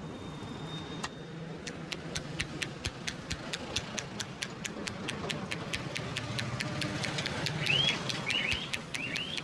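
Rapid, even percussive taps of a head massage, about five a second and quickening toward the end. Near the end a bird joins in with a short chirp repeated about twice a second.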